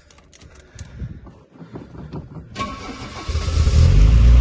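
A 1970 Opel GT's four-cylinder engine being started: a few faint clicks as the key turns, brief cranking, then the engine catches about three seconds in and runs, getting louder.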